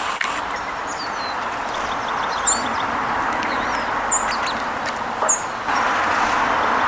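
Small birds giving short, very high chirps, three sharper ones standing out, over a steady background rush of noise.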